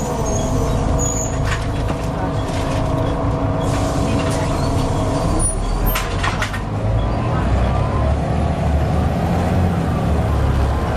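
Volvo B7TL double-decker bus running, a steady whine over the engine's low rumble, the strange whining noise of this bus and its cooling fan. About seven seconds in, the low rumble grows louder, with a few sharp clicks along the way.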